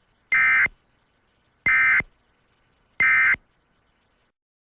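Emergency Alert System end-of-message code: three short, identical bursts of SAME digital data tones, about a second and a third apart, marking the close of the alert.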